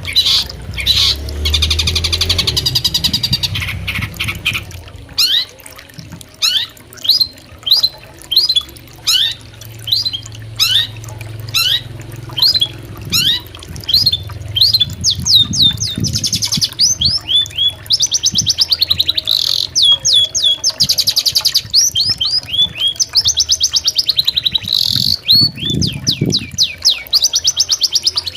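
Long-tailed shrike singing: a long series of sharp upward-sweeping chirps, roughly two a second, broken by harsh buzzy rasping phrases near the start and again in the second half.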